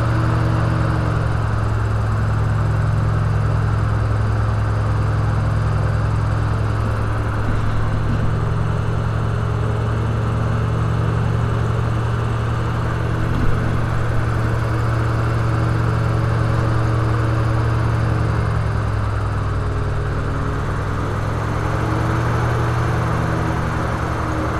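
Airboat's engine and caged air propeller running with a steady, loud drone. The pitch eases down slightly and comes back up about three quarters of the way through.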